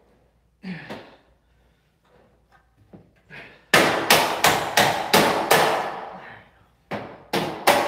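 Hammer striking a hollow metal door frame. A quick run of six blows, about three a second, starts about four seconds in, then three more near the end, each with a short metallic ring.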